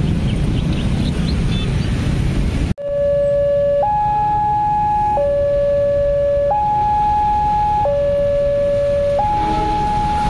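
Railway level-crossing warning alarm sounding its two-tone signal, alternating between a lower and a higher pitch, each held for just over a second, over steady road traffic noise: the warning that a train is approaching the crossing. It drops out for an instant about three seconds in, then comes back louder and clearer.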